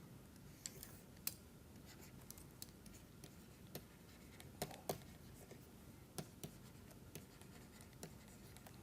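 Near silence with faint, scattered taps and scratching of a pen writing.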